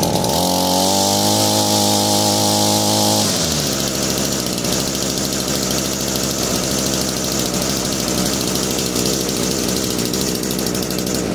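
Echo GT-225 trimmer's small two-stroke engine, freshly fitted with a new carburetor kit and fuel lines. It runs at a high, steady speed for about three seconds, then drops to a steady idle that seems to be okay and needs no adjustment.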